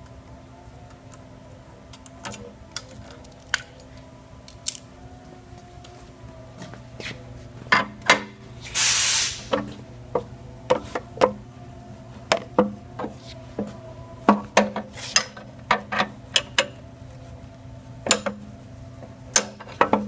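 Sharp metallic clicks and clanks from handling the frame, hose fittings and blade guard of a walk-behind concrete saw, growing frequent from about seven seconds in. A short hiss lasting about a second comes about nine seconds in. A steady low hum runs underneath.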